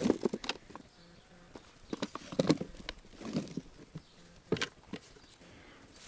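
Potatoes tumbling out of a plastic tub onto loose potting soil: a scatter of soft thuds and knocks, the loudest about two and a half seconds in and again near four and a half seconds.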